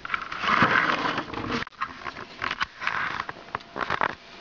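Felt-tip marker scribbling on a sheet of aluminium foil, the foil crackling under it: a dense scratching for about a second and a half, then a run of short scratches and sharp clicks.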